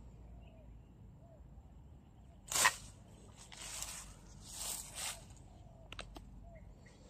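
A mesh butterfly net is swung down onto low leafy plants. There is one sharp swish about two and a half seconds in, then softer rustling of net and leaves twice, and two short clicks near the end.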